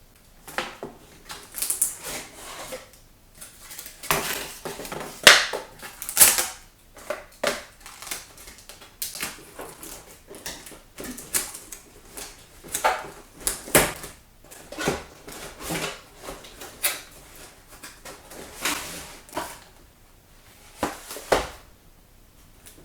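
A cardboard box and its packaging being handled as the plastic parts of a toy house are pulled out: irregular rustling, scraping and clattering.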